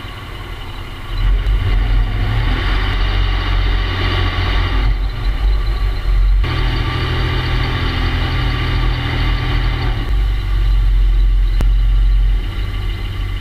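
A moving car heard through a camera's microphone mounted on the hood: a heavy low rumble of wind and road noise with the engine beneath it. It swells about a second in, dips briefly midway and eases a little near the end.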